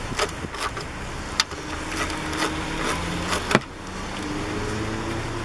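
Ratchet with a 10 mm socket clicking in short, irregular strokes as bolts are loosened, with a few sharp metal clicks. A steady low engine hum joins about halfway through.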